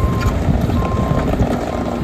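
Wacker-Neuson EZ36 mini excavator running, its diesel engine a steady low rumble, with a machine alarm beeping about once a second and light clanks.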